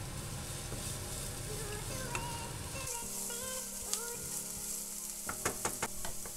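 Diced onion sizzling as it fries in oil in a nonstick pan, stirred with a wooden spatula, a steady high hiss. A few sharp taps come in quick succession near the end.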